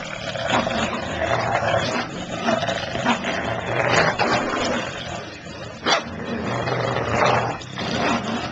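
An English bulldog and a papillon vocalizing while tugging on a rope toy: continuous play growling, with a couple of sharp barks, the clearest about two-thirds of the way through.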